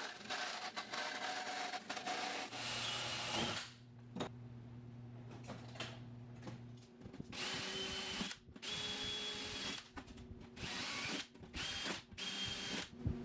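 A bandsaw cutting aluminum sheet, then a cordless drill drilling holes through aluminum sheet in several short bursts in the second half, each with a high whine from the motor.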